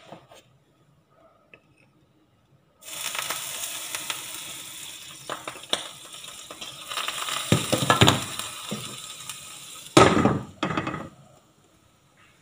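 Water poured into a hot nonstick frying pan sizzles loudly, starting suddenly about three seconds in, adding steam to cook the souffle pancakes. Clinks sound part-way through, and near the end a glass lid clatters onto the pan and the sizzling dies down.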